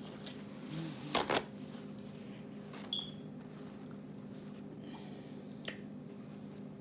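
Handling sounds at a table: a few scattered clicks and rustles, the loudest two close together about a second in, over a steady low hum.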